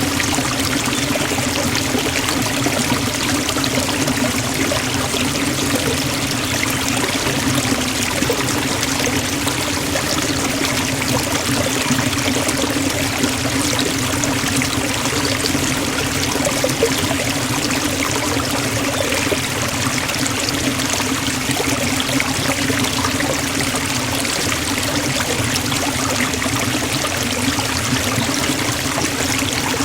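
Waterfall in a forest: falling water splashing in a steady, unbroken rush, with a deep rumble underneath.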